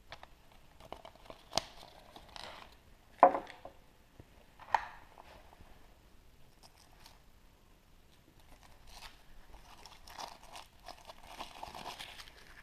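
A chocolate surprise egg being opened by hand: three sharp cracks in the first five seconds, the middle one loudest, then wrapper crinkling and rustling near the end.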